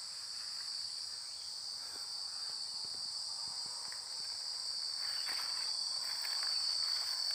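Steady, high-pitched chorus of insects droning without a break, with a few faint ticks.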